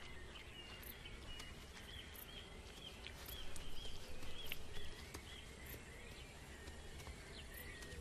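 Small birds chirping in the background: short arched chirps repeating about every half second, with some gliding notes, over a soft outdoor hiss. There is a brief louder rustle near the middle.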